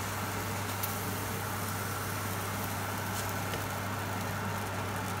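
Rice tikki batter frying in a hot buttered nonstick pan: a steady, even sizzle over a constant low hum.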